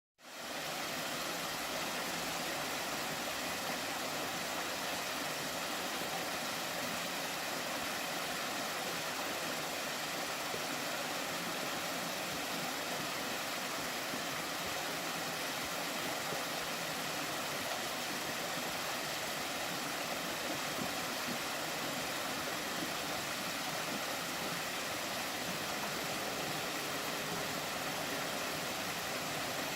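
Waterfall: a steady, even rush of falling water that does not change throughout.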